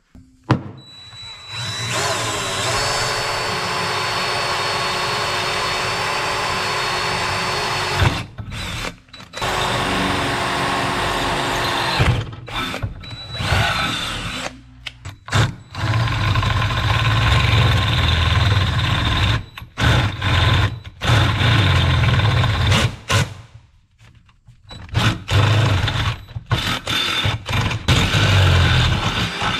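Handheld electric drill boring through a metal pipe. The motor runs steadily for several seconds, then starts and stops in a series of runs as the bit cuts through the pipe wall.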